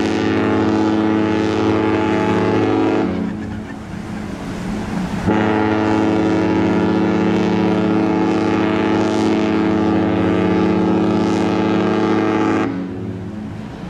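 Cruise ship horn sounding in two deep, steady blasts. The first stops about three seconds in; after a two-second pause a longer blast of about seven seconds follows and stops near the end.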